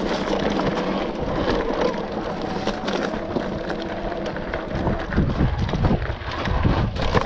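Wind rushing over the microphone while riding an electric motorbike along a rough trail, with a steady rush of riding noise and many small crunches and knocks. The low buffeting grows heavier about five seconds in.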